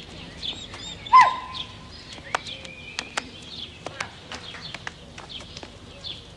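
Birds chirping, with scattered clicking footsteps on pavement and one loud, short cry about a second in.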